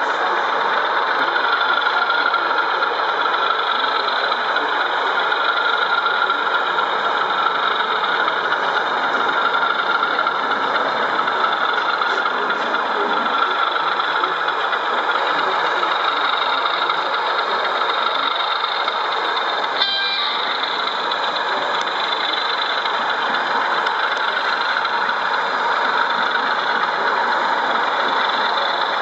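Steady diesel engine sound from a model diesel locomotive's onboard sound system as it runs along the layout, mixed with the general hubbub of an exhibition hall.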